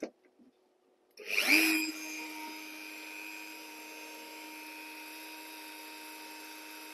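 Hand-held rotary carving tool with a Kutzall carbide burr spinning up about a second in, its pitch rising, then running at a steady whine as the burr carves into ash wood.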